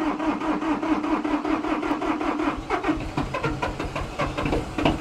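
Cold diesel tractor engine running just after catching, with fast regular firing knocks and a steady hum through the first half. It has no block heater, and the owner thinks it is due new glow plugs.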